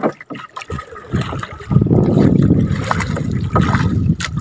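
Strong wind buffeting the microphone over water splashing and lapping against a small outrigger boat, with a few knocks in the first second or so. The wind noise gets much louder a little under two seconds in.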